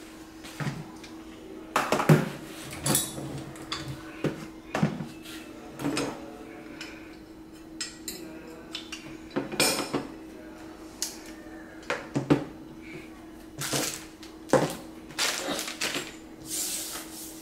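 Die-cast metal excavator attachments and small parts in plastic bags being handled and set down on a wooden table: irregular knocks and clinks mixed with short rustles of plastic, over a faint steady hum.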